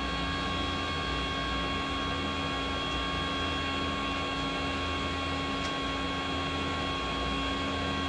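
Section roll-bending machine running as its powered rolls curl a flat steel strip into a spiral: a steady drone of motor and gearing, a low rumble with several constant whining tones above it.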